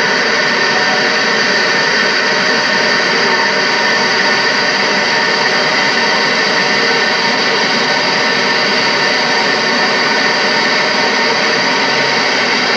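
Steady, loud rushing noise with faint constant tones under it, unchanging throughout, with no speech.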